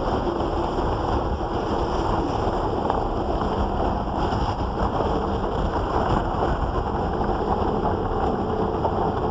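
Strong wind buffeting the microphone over choppy water: a steady rushing noise, heaviest in the low end.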